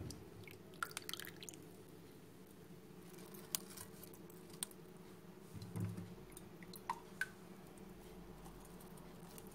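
Faint wet kitchen sounds: scattered small clicks, pops and squishes over a steady low hum.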